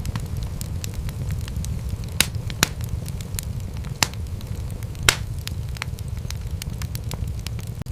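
Wood fire crackling in a fireplace: a steady low rumble of flames with frequent small sharp pops, four louder pops between about two and five seconds in.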